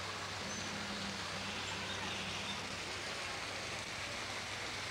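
Steady outdoor background noise, an even rushing hiss with a faint low hum and no distinct event.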